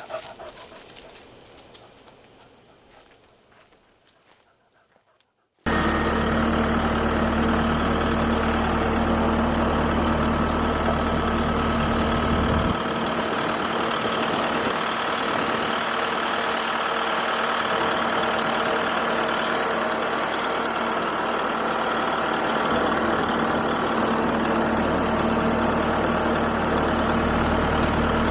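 Kubota MX5400 tractor's diesel engine running steadily. It starts abruptly about five seconds in, after a short, fading quieter stretch, and its deep low rumble eases a little about halfway through.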